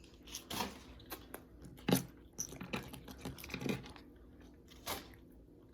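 Chewing and biting into chicken wings, with a few sharp, irregular clicks and smacks.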